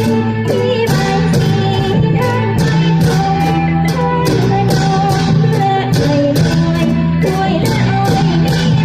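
A song with singing over a steady beat, about three percussion strokes a second, and a sustained low drone underneath.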